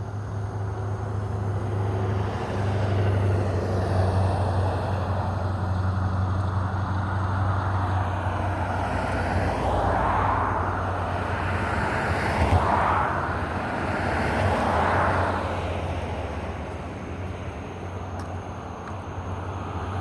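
Road traffic: vehicles passing by, their noise swelling and fading several times in the middle over a steady low hum.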